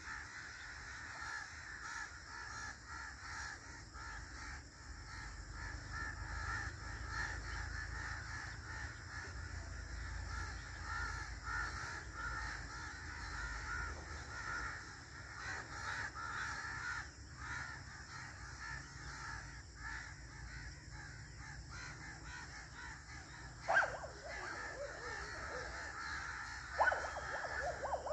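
Birds calling in the trees: a steady chatter of chirps, with louder harsh calls once about three-quarters of the way through and a few more near the end.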